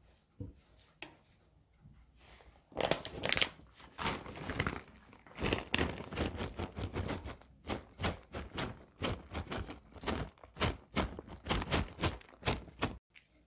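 Shredded cheese being sprinkled by hand over a tomato-sauced dish, with dense crinkling and rustling handling noise and soft taps, several a second. It starts a few seconds in and stops suddenly near the end.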